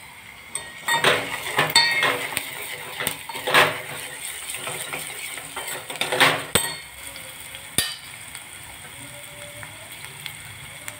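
Steel ladle stirring freshly added coriander powder into onions frying in oil in a small stainless-steel pot, scraping and clinking against the metal over a steady sizzle. The stirring clinks fall in the first seven seconds, with one sharp clink near eight seconds, after which only the sizzle goes on.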